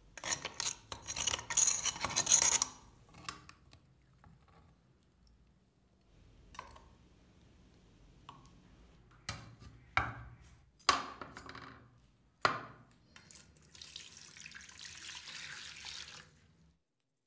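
Wet sloshing and clattering as rusty wrench parts are lifted with metal tongs out of a vinegar rust bath in a glass tank, then several sharp knocks of metal against glass. Near the end, running water pours over the wrench in a tray as it is rinsed, stopping suddenly.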